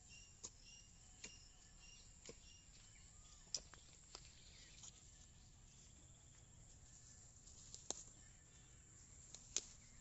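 Near silence: a faint outdoor background with a few short, sharp clicks scattered through it and faint high chirping in the first couple of seconds.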